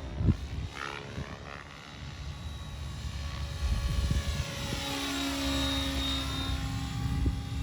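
Oxy 5 HF electric RC helicopter in flight, its rotor and motor running continuously. The pitch sweeps up and down as it manoeuvres, and it gets louder about halfway through. There is a brief thump just after it begins.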